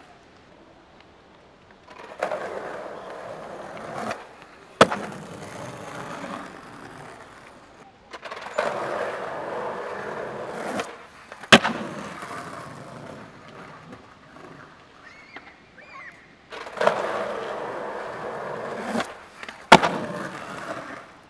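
Skateboard wheels rolling over rough concrete in three separate runs, each a few seconds long, with a sharp clack of the board striking the ground in each run, the loudest near the end.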